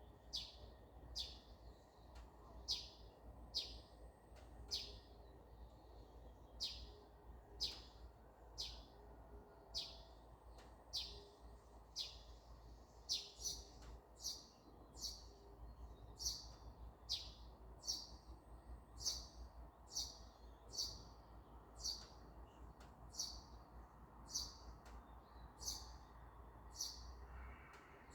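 A small songbird repeating a single short, high chirp that slides downward, over and over at about one to two a second, over a faint steady low hum.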